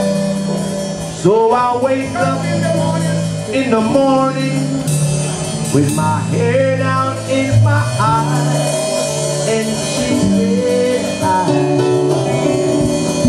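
Reggae band playing live, with a steady bass line and guitar under a male singer's vocal lines.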